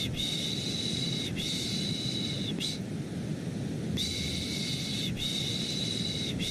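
Repeated 'shh' shushing sounds, about a second each, coming in back-to-back runs with a short pause between runs. They lie over a steady, low, rumbling white noise. This is a shushing-and-white-noise loop for lulling a baby to sleep.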